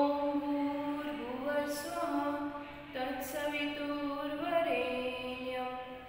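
A woman singing a prayer unaccompanied, holding long notes that step up and down in pitch.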